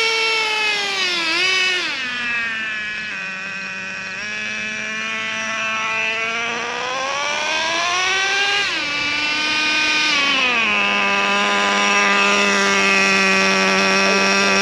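Traxxas Revo 3.3 RC truck's two-stroke nitro engine running at varying speed during break-in. Its high whine drops in pitch about two seconds in, climbs again, falls twice around the middle, then holds at a steady lower pitch for the last few seconds.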